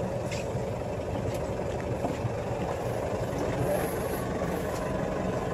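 Motor launch's engine idling steadily.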